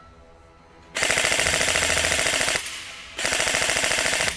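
Electric airsoft M4 rifle (D.E. Armory M906A, metal gearbox) firing on full auto in two rapid bursts. The first starts about a second in and lasts about a second and a half; the second starts near three seconds and runs on.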